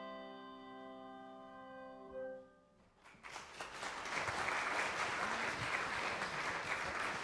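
Handbells ringing a sustained chord, which stops about two and a half seconds in. After a brief pause, the audience bursts into applause that runs on to the end.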